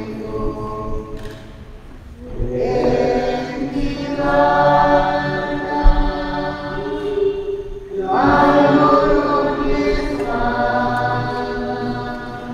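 Church choir singing a hymn in long held notes. A new phrase begins about two seconds in and another about eight seconds in.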